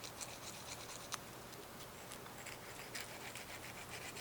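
Faint, irregular scratching strokes of a hand file on the hook of a homemade lock pick, flattening the hook's angle. A single sharper click about a second in.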